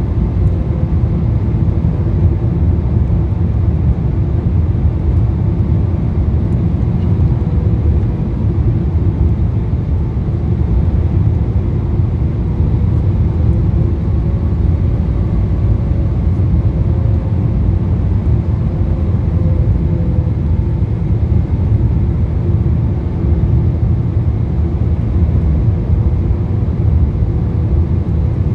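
Steady cabin rumble inside a Boeing 777-300ER on final approach, heard from a window seat over the wing: its GE90 engines running and the rush of air over the extended flaps, with a faint steady whine above.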